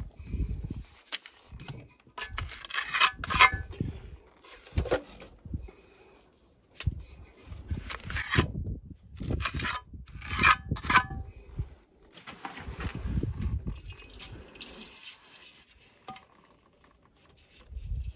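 Steel trowel scraping and clinking in a run of short, irregular strokes as mortar is scooped off a board and pressed around an electrical box in a stone wall, setting the box in place.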